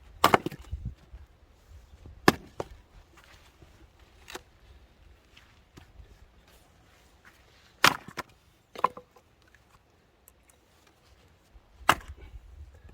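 Firewood being chopped by hand: about five sharp, separate strikes on wood, irregularly spaced with pauses of one to several seconds between them.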